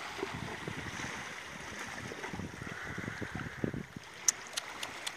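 Steady outdoor background noise with wind buffeting the phone's microphone, and a few small sharp clicks near the end.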